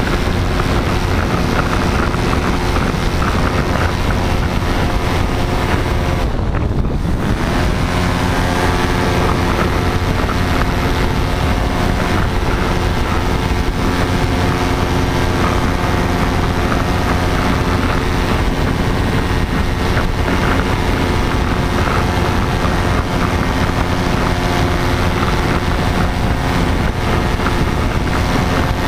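Paramotor engine and propeller running steadily under power during a climb, with wind buffeting the microphone. The high hiss briefly dips about six and a half seconds in.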